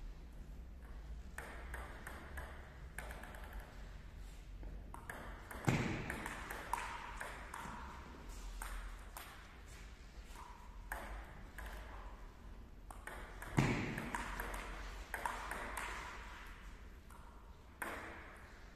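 Table tennis rallies: the ball clicking back and forth off the paddles and the table, with two louder thumps about six seconds in and again about fourteen seconds in.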